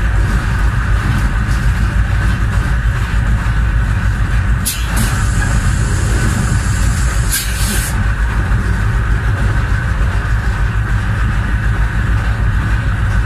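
Diesel locomotive running along the line: a steady heavy rumble of engine and wheels on the rails. About five seconds in, a high hiss starts abruptly and cuts off about three seconds later.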